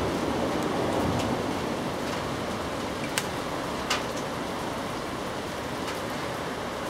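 Steady rain falling, with two sharp taps of drops hitting something close by about three and four seconds in.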